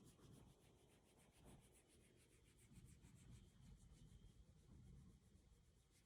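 Faint rubbing and rustling of hands vigorously stroking a Shiba Inu's belly fur.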